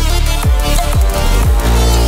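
Background electronic music with a heavy bass beat; several deep bass hits slide down in pitch.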